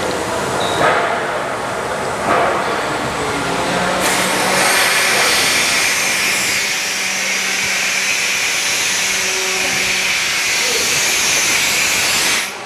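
Pacific PSE36 36 kW electric steam boiler releasing steam: a strong, steady hiss starts abruptly about four seconds in, with a low hum under it, and cuts off suddenly just before the end. Before the hiss, uneven machine noise with two short swells.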